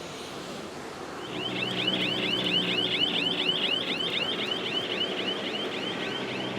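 Electronic alarm chirping in a fast, even series of short rising chirps, about five a second, starting about a second in, over a faint steady low hum.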